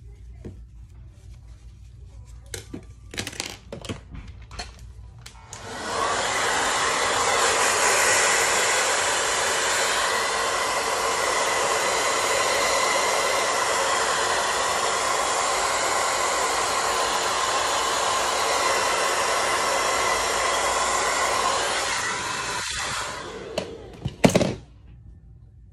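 Handheld hair dryer running steadily, a rush of air with a steady whine, switching on about six seconds in and winding down near the end. A few clicks and handling knocks come before it starts, and a couple of sharp clicks follow as it stops.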